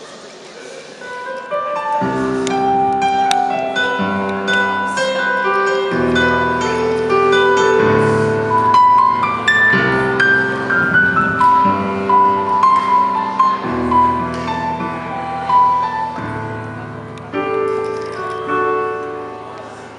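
Piano playing an instrumental introduction: held chords changing every couple of seconds, with a melody of single notes above them, coming in fully about two seconds in.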